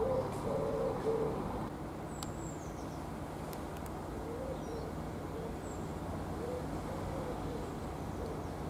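A pigeon cooing in repeated low phrases, clearest in the first couple of seconds and fainter after, over the steady low drone of a Class 66 diesel locomotive's engine as it approaches. A small bird chirps briefly a couple of times.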